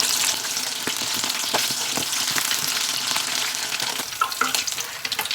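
Potato-starch-coated scabbard fish pieces deep-frying in hot vegetable oil: a steady sizzle full of fine crackles, with a few sharper clicks about four seconds in.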